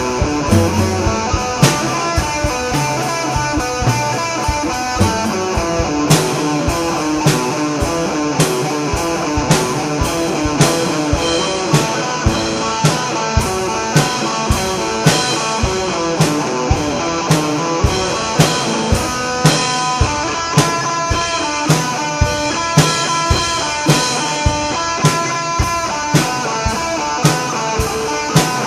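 Rock music played on guitar and drum kit. The guitar plays a busy run of quickly changing notes over a steady drum beat.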